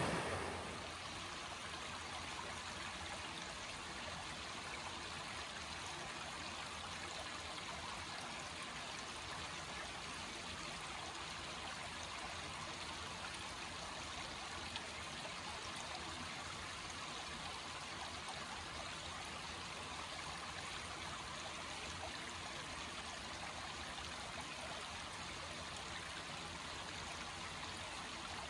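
Shallow creek rippling over flat rock ledges and gravel: a steady, even rush and trickle of water.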